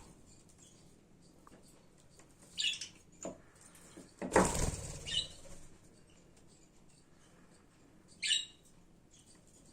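Budgerigars giving a few short, high chirps, with a loud flurry of wing-flapping about four seconds in, the loudest sound here.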